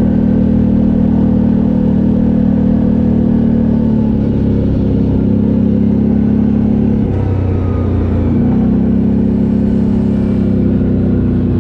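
ATV engine running steadily at speed while riding. Its pitch drops briefly about seven seconds in as the throttle eases, then climbs back up.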